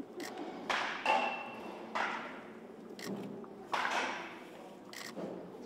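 Pitched baseballs popping into catchers' mitts in a bullpen: several sharp pops, irregularly spaced, some with a short echo.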